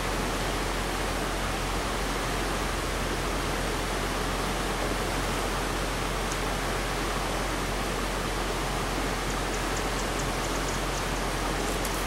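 Steady rush of a shallow stream running over rocks: an even, unbroken hiss of flowing water.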